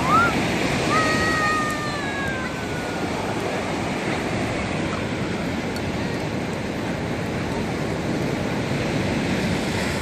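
Sea surf washing steadily on the shore, with a small child's brief high-pitched voice in the first couple of seconds.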